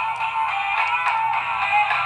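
Music: an electronic tune with a synthetic, voice-like melody.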